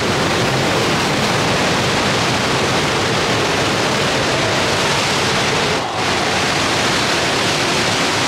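Steady rushing noise of the Horseshoe Falls, the Canadian falls at Niagara, carried through the tunnel beneath them. It dips briefly about six seconds in.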